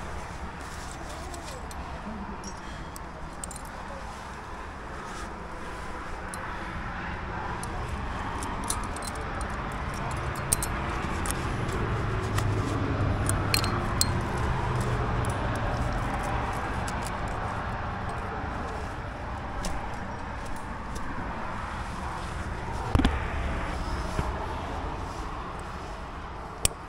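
Climbing gear clinking and carabiners clicking while quickdraws are clipped, with a handful of sharp clicks, over steady rustling of a nylon jacket close to the camera.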